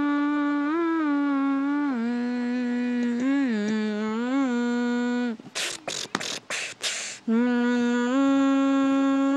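A person humming long, held notes with small rises and dips in pitch, broken about five seconds in by two seconds of short breathy bursts before the humming resumes.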